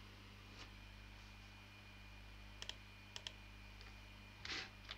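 Computer mouse clicking over a low steady electrical hum: a single click, then two quick click pairs about half a second apart, and a short soft hiss near the end.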